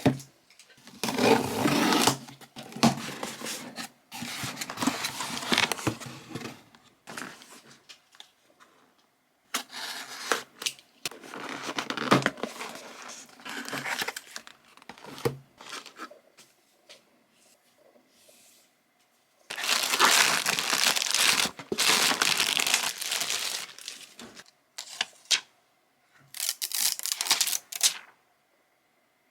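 Packaging crinkling and tearing as a new product is unboxed, in several long spells of rustling with short quiet gaps between.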